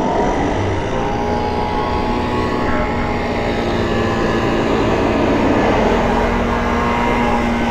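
Electric scooter riding along: a steady motor whine holding a few even pitches, over wind rumble on the microphone.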